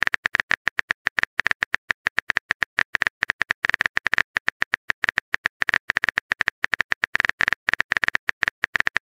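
Phone keyboard typing clicks from a texting app as a message is typed out: short, rapid, irregular clicks, several a second.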